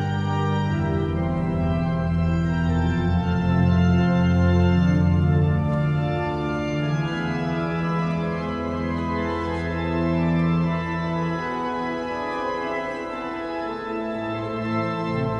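Organ playing a prelude in a large church: sustained chords over held bass notes. The deep bass drops away about three-quarters of the way through, and a new low note enters near the end.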